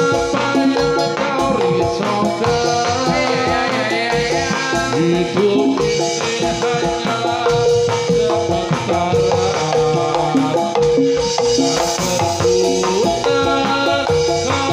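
Live Javanese gamelan music for a jathilan horse dance: metallophones ringing quick repeating notes over a steady drum beat.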